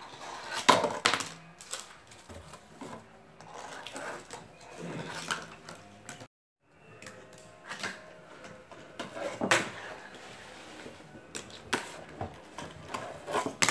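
Irregular small clicks, knocks and clatter of a toy fingerboard and its wooden ramp and cardboard lip being handled, its wheels and deck tapping on wood and cardboard. The sound drops out completely for a moment a little past the middle.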